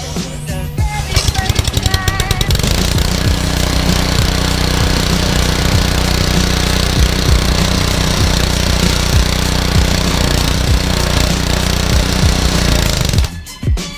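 Honda GC190 single-cylinder engine of a new gas pressure washer catching after a burst of rapid firing about two seconds in, then running steadily and loudly on its first start with the choke out. It stops abruptly near the end.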